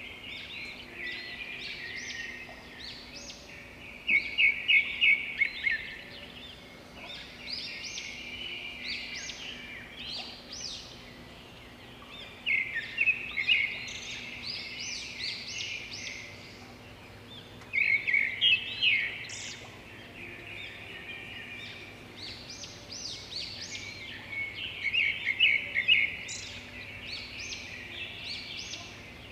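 Birds chirping and twittering, with four louder bouts of rapid, fast-repeating trills spread through.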